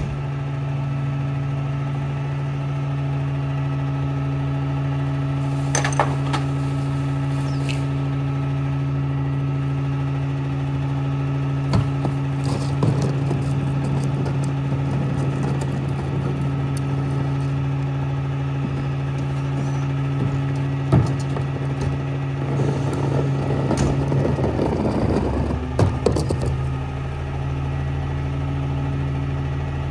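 Rear-loader garbage truck's diesel engine running steadily at a standstill, with a few sharp clanks and a longer spell of clatter late on as trash is handled at the hopper.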